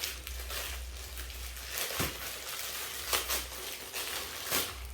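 Packaging being opened by hand: steady crinkling and tearing, with three sharp knocks of handling along the way.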